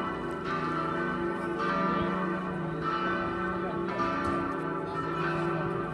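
Partial peal of four church bells, two cast in 1736 and two in 2013 and tuned d', e', f-sharp' and a', ringing together. Their strikes overlap and ring on into one another in a continuous wash of tones.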